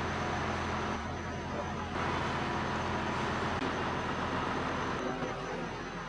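Steady low rumbling background noise with a constant low hum.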